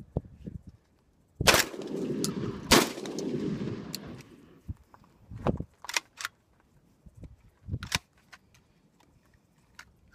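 Catamount Fury II 12-gauge semi-automatic shotgun firing birdshot target loads: two shots about a second and a quarter apart, each followed by a long echo. Then a few short metallic clicks and clacks as the action is worked by hand.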